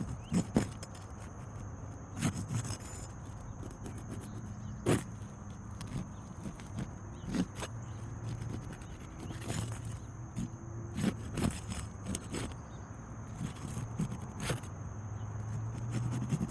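Scraping and scattered sharp knocks of roofing tools working against asphalt 3-tab shingles, prying under the rows to get at the nails.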